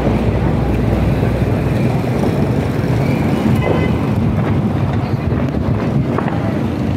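Steady engine and road rumble of a car driving, heard from inside the car, with wind noise on the microphone.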